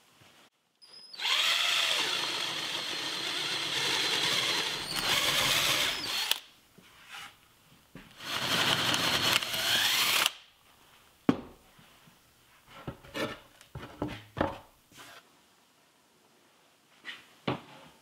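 Power drill boring 1-inch holes through a poplar board with a spade bit, in two spells of steady drilling, the first about five seconds long and the second about two. Scattered short knocks of boards being handled follow.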